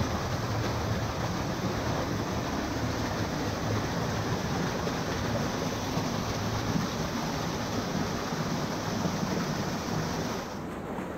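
Small creek waterfall pouring over and around boulders, a steady rush of water. About ten seconds in, the sound abruptly turns duller.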